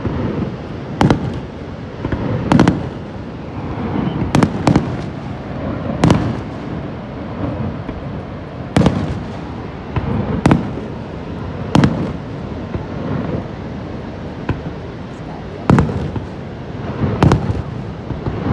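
Aerial fireworks going off: about a dozen sharp bangs at irregular intervals a second or two apart, each trailing off in a short echoing rumble, over a steady rushing background noise.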